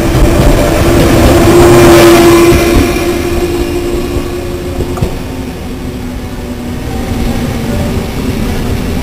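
A Taiwan Railways push-pull Tze-Chiang express (E1000) passes close by, its wheels running over the rails. A steady hum rises as the end power car goes past about two seconds in, then the noise fades as the train pulls away.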